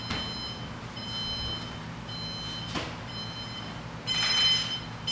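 Electronic alarm clock beeping, a high beep about once a second that grows louder near the end. Two short knocks sound over it.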